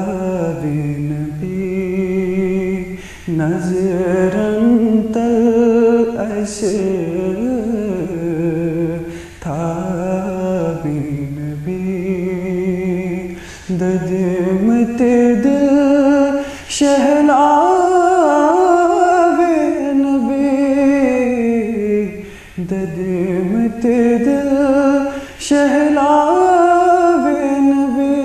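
A naat, a devotional song in praise of the Prophet Muhammad, sung by one voice in long melodic phrases with short breaks between them.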